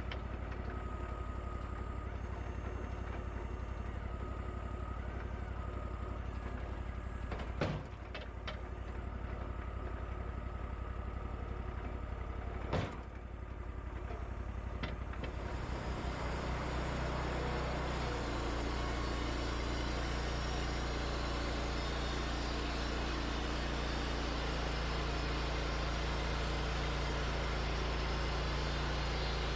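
Wood-Mizer LT40 band sawmill engine running steadily, with two sharp knocks about 8 and 13 seconds in. About halfway through the engine speeds up and runs louder, with a rushing hiss over it.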